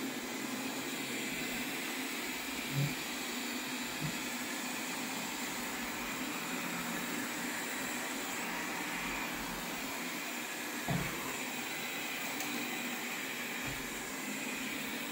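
Wyze LIDAR robot vacuum running steadily, a pretty quiet even whir and hiss, with a few soft low thumps scattered through it.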